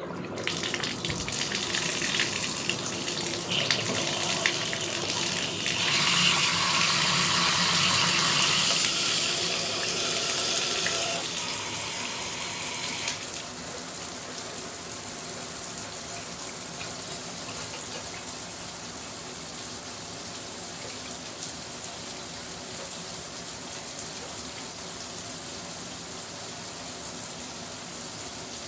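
Bathroom shower running, water spraying and splashing steadily. It grows louder and brighter for a few seconds around the middle, then settles into a softer, even spray.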